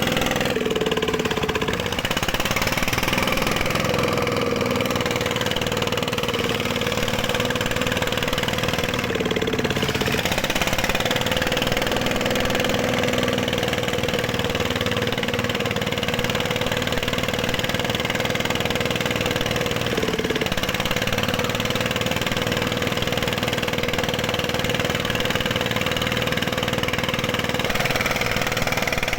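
Dongfeng ('dompeng') diesel engine running steadily and loudly, its note dipping briefly twice.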